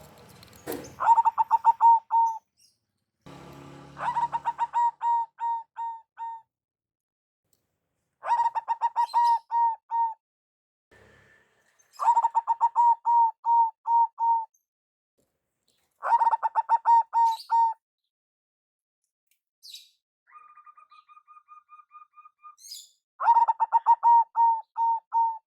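Zebra dove (perkutut) cooing: six loud phrases of quick, rolling notes, about one every four seconds. A fainter, higher, evenly pulsed call comes between the last two phrases.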